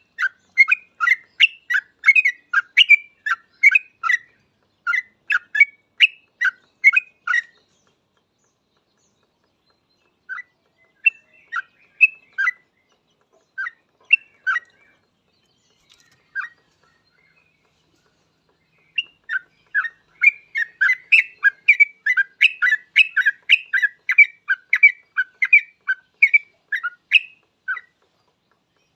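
Yellow-vented bulbul (trucuk) singing: quick runs of short, loud notes, then a pause and a few scattered notes midway, then another long run near the end.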